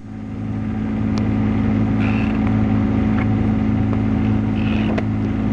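A boat's engine running steadily with a low, even hum, fading up over the first second.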